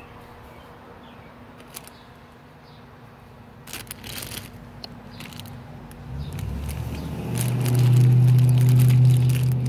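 Clear plastic bag of small plastic doll accessories crinkling and rustling as it is handled. From about six seconds in, a low steady hum rises and becomes the loudest sound.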